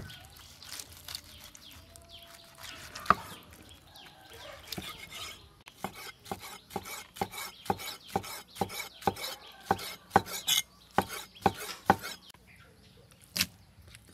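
A cleaver cutting boiled meat on a wooden chopping board: scattered soft cuts at first, then from about halfway a steady run of chops, about three a second, with one last knock near the end.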